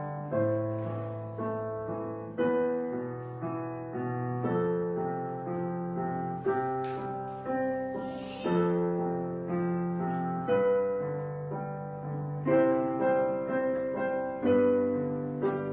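Background music played on piano: struck notes that fade away, over a low bass line that moves every second or two.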